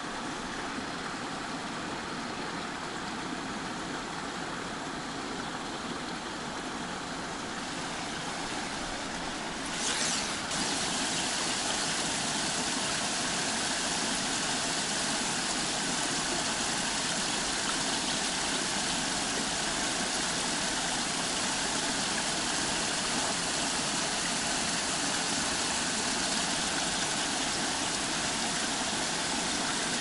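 Steady rushing hiss of a small forest stream's flowing water. About ten seconds in there is a brief rustle, after which the hiss is a little louder.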